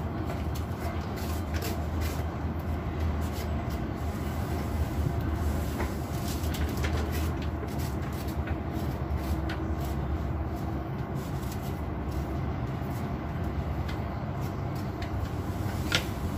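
Steady low rumble of background noise with scattered light knocks and clicks from handling food and kitchen utensils, one sharper click near the end.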